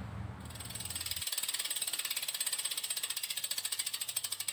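A road bike's rear freehub ticking fast and evenly, about ten clicks a second, as the rear wheel spins freely; the pawls click against the ratchet ring. It starts about half a second in.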